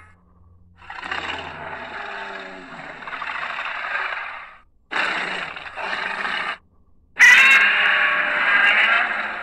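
Three Godzilla roar sound effects from the 1999–2004 films. The first is long and swells over about four seconds, the second is shorter and broken in two, and the last is the loudest and starts suddenly.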